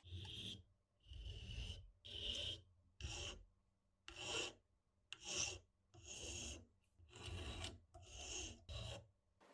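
Flat hand file rasping across the head of a small steel hex-head screw held in a vise: about ten strokes, roughly one a second.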